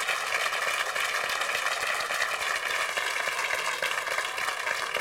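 Studio audience applauding steadily, many hands clapping.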